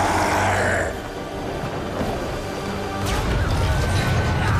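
Action-film soundtrack: score and crashing impact sound effects, loudest in the first second, then a deep rumble with a thin high tone held over it from about three seconds in.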